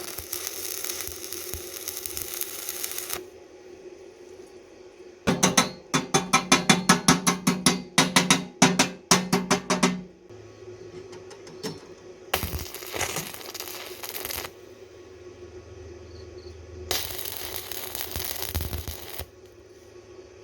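Steel being worked: a run of about twenty quick hammer-like blows ringing on metal, about four a second, set between several bursts of harsh hissing noise of a few seconds each.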